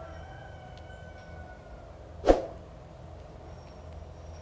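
Diesel fuel injector parts handled on the bench: the ring of struck metal fades away, then there is a single sharp metallic knock about two seconds in.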